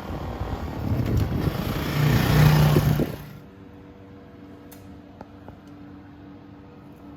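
Honda CRF125FB dirt bike's single-cylinder four-stroke engine running and rising in pitch and loudness, with wind rushing on the microphone. The sound cuts off abruptly about three seconds in, leaving a faint steady hum.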